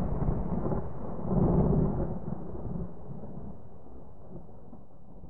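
A deep rolling rumble in the soundtrack, swelling once about a second and a half in, then slowly fading away.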